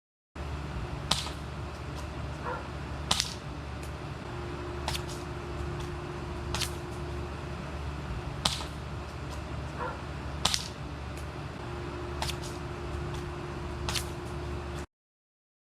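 Suppressed VSR-10 bolt-action airsoft rifle on an HPA Wolverine bolt, fired six times about two seconds apart, each shot a short sharp crack, with fainter clicks between shots, over a steady low hum.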